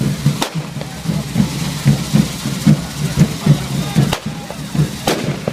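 Ground-level fireworks: a steady fizzing of sparks broken by three sharp firecracker bangs, over a rhythmic low drumbeat of about two and a half beats a second and crowd voices.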